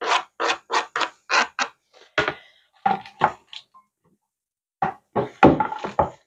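Diced ham being scraped off a plastic cutting board into a glass mixing bowl: a quick run of short scraping strokes, about three a second, a few more in the middle, then another cluster of scrapes near the end.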